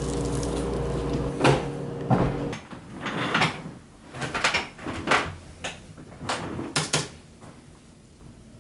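A steady electrical hum that cuts off in the first few seconds, then a series of irregular knocks, clacks and rustles as someone pulls out an office chair and sits down at a desk.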